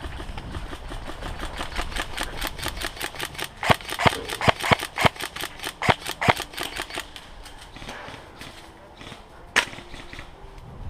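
Airsoft guns firing: a rapid string of sharp cracks that peaks about four to six seconds in, then one lone loud shot near the end.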